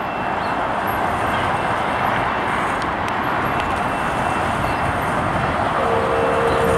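Steady background road-traffic and wind noise. A faint steady tone begins near the end.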